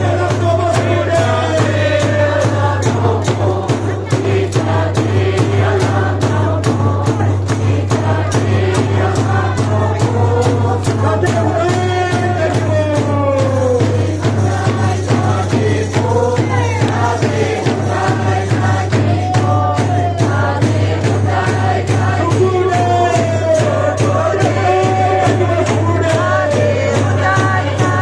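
A congregation singing a worship hymn together, led by singers on microphones, with hands clapping a steady beat about three times a second.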